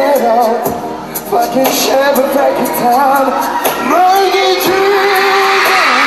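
Male pop singer singing into a handheld microphone over pop backing music, holding one long note about four seconds in.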